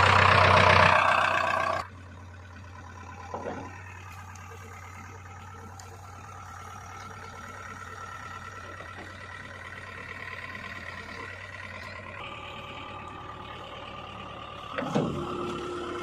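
JCB 3DX backhoe loader's diesel engine, loud for the first couple of seconds, then cutting down to a steady idle. A short knock comes about three and a half seconds in and a louder clunk near the end.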